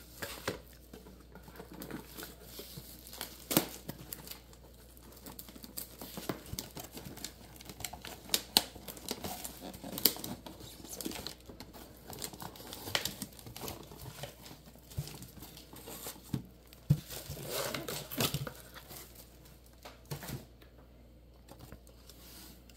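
Clear plastic shrink wrap being torn and pulled off card boxes and a tin, crinkling irregularly with occasional sharp snaps and knocks as the packages are handled.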